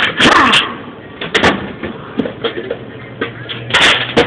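Power ratchet run in short bursts, backing out bolts on a Ford A4LD transmission case, with sharp metal clicks between the bursts. There is one burst at the start and another near the end.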